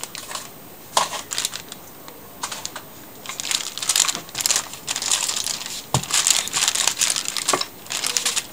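Baking paper crinkling and rustling under a wooden rolling pin as dough is rolled out between two sheets, with a few sharp knocks. The crinkling comes in repeated bursts with each stroke, mostly from about three seconds in.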